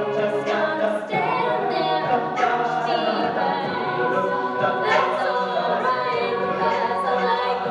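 Mixed-voice a cappella group singing a pop mash-up, many voices in close harmony with no instruments.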